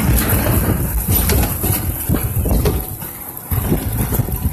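Water flume ride boat running along its water channel: a steady rush of water and air noise on the microphone, dipping briefly about three seconds in.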